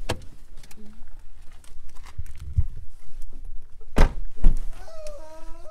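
Car doors shutting with heavy thunks: a pair right at the start and two louder ones about four seconds in, with shuffling footsteps between them.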